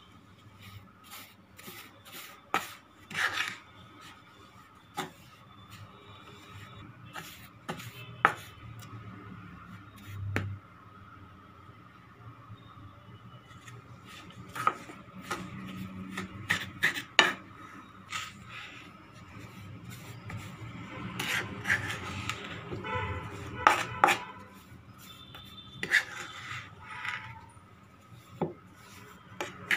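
Wooden spoon stirring and scraping through a dry, crumbly mix of fried maida flour and powdered sugar in a kadai: a rubbing scrape broken by irregular clicks and knocks of the spoon against the pan.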